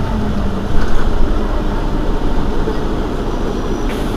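Mercedes-Benz Citaro city bus idling at a stop: a steady low engine rumble.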